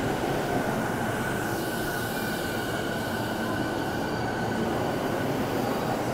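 JR Keihin-Tohoku Line electric commuter train rolling slowly along the platform, a steady rumble of wheels on rails with a thin high whine that fades out about five seconds in.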